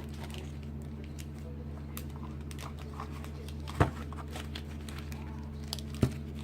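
Tape being peeled back off a car wiring harness: faint crinkling and tearing, with two sharp clicks, about four and six seconds in, over a steady low hum.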